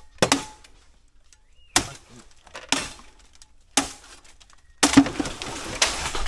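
Bamboo being chopped: five sharp, hollow cracking strikes about a second apart. From about five seconds in comes a longer stretch of crackling and rustling.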